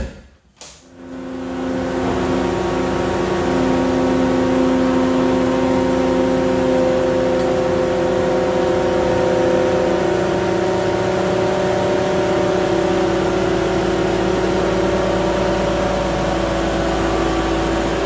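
Cat 279D3 compact track loader's diesel engine running steadily at a loud, even level, coming up to full level over about the first two seconds.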